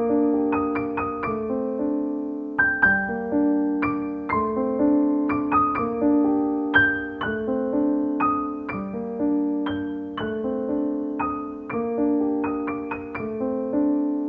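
Background piano music: single notes and chords struck and left to ring into one another.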